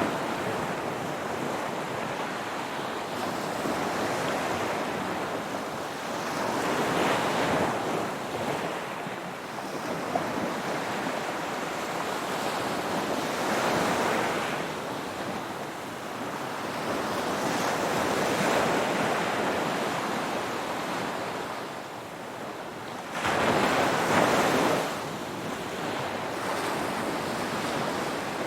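Ocean waves washing onto the shore, a steady surf that swells and falls back every several seconds, with the biggest wave breaking near the end.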